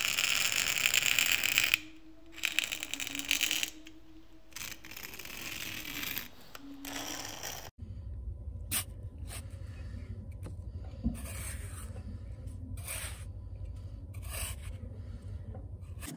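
A thin wooden stick scratching lines into sand in several strokes. Then, after about eight seconds, a small hand trowel scrapes and digs into the sand in short strokes, over a low steady hum.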